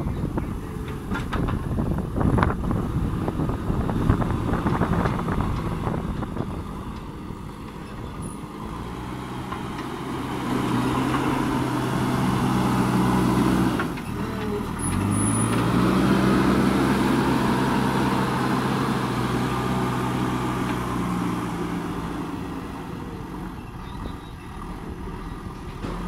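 JCB 3DX backhoe loader's diesel engine working under load, with clanks and scraping of the bucket and soil in the first several seconds. Past the middle the sound breaks off sharply, then the engine revs up, rising in pitch, and runs steadily before easing off near the end.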